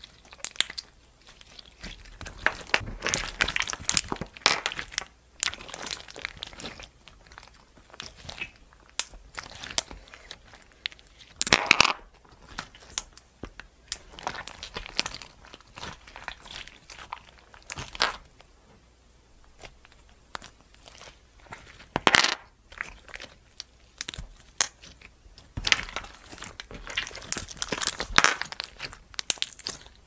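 Homemade slime full of flat glass pebbles being squeezed and kneaded by hand: sticky squelching with crackling pops and clicks in irregular bursts, a few louder squelches about a third and two thirds of the way through.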